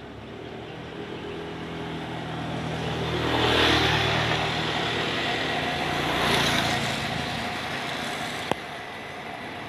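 Motor vehicle driving across a steel truss bridge: steady engine and road noise that swells louder twice, with a single sharp knock near the end.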